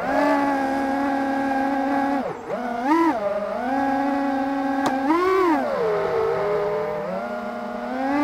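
FPV quadcopter's motors and propellers whining as it flies, the pitch following the throttle: steady for stretches, dipping sharply about two seconds in, surging up and back down around three and five seconds in, then running lower before stepping up again near the end.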